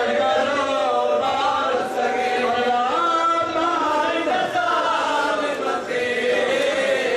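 A man chanting a lori, a lullaby-style Muharram lament, in long held notes that glide up and down, with other voices joining in chorus.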